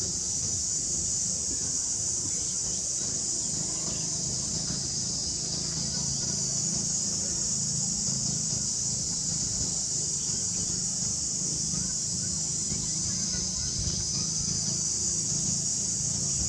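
Steady high-pitched insect chorus droning without a break, with a low rumble underneath.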